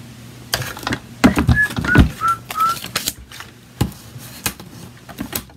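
Scattered clicks and knocks of craft tools, die-cutting plates and metal dies being handled and set down on a desk. About a second and a half in come four short whistled notes, each a little lower than the last.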